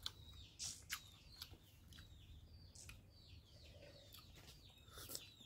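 Quiet background of faint bird chirps, short falling notes repeated now and then, with a few soft clicks of chewing and mouth smacks.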